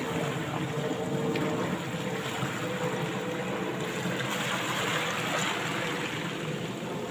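Small waves washing on a sandy beach, a steady rush, with a faint steady hum underneath.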